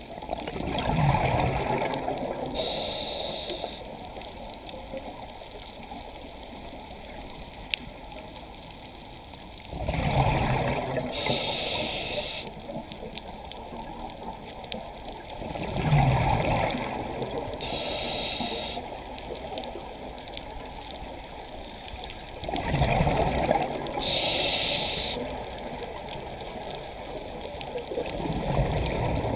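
Scuba diver breathing through a regulator, heard underwater: a rushing, gurgling burst of exhaled bubbles about every six or seven seconds, each followed by a short hiss of inhalation. About four full breaths, with the next exhalation starting near the end.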